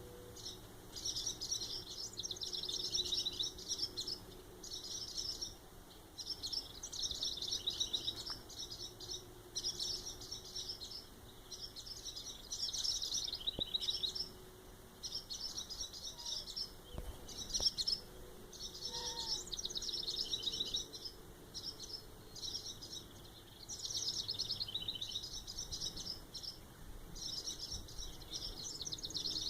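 Small birds chirping in repeated runs of rapid high notes, each run a second or two long with short pauses between: the agitated calls of birds mobbing a cat near their nestlings.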